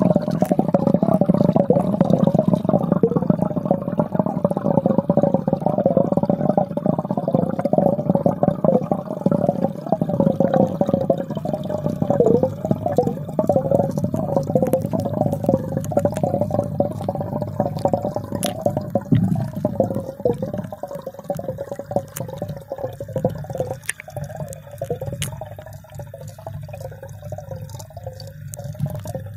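Water bubbling and churning in a fish tank, heard muffled through a phone's microphone held underwater. The burbling is continuous, with a few sharp ticks scattered through the second half.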